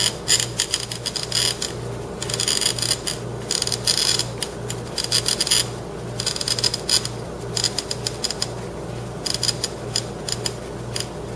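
The cutting wheel of an Ephrem's Deluxe bottle cutter scoring a green glass bottle as the bottle is turned by hand: a fine scratchy crackle in runs, broken by short pauses where the hands shift grip.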